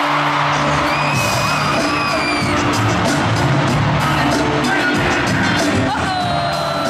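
Live hip-hop concert music over a stadium sound system, heard from the stands, with a rapper's voice over a steady beat and bass and the crowd cheering and whooping.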